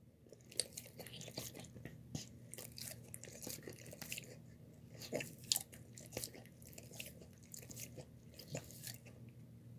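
A dog eating wet, sloppy food: soft chewing and lip-smacking, a quick, irregular run of small wet clicks.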